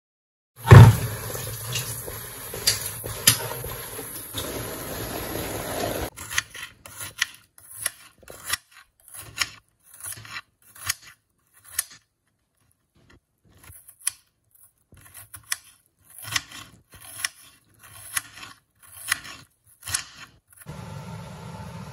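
Water splashing into a plastic bowl of soaking dried beans for about five seconds, then a kitchen knife slicing through an onion and knocking on the cutting board in short, irregular strokes, one or two a second. A steady low hum starts near the end.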